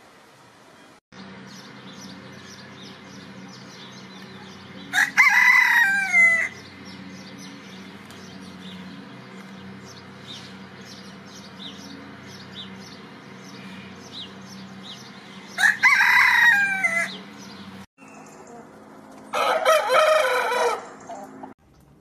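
Roosters crowing: three long crows, each rising then falling in pitch, the first two about ten seconds apart and the third soon after the second. Between the crows, faint high chirps over a low steady hum.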